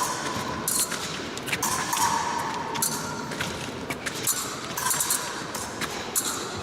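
Épée fencing bout: a rapid, irregular series of sharp metallic clicks and clanks from blades meeting and shoes striking the piste, with a few short steady tones near the start, about two seconds in and about five seconds in.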